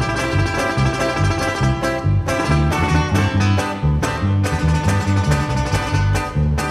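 Sierreño group playing dance music, with guitars plucked and strummed over a bouncing bass line.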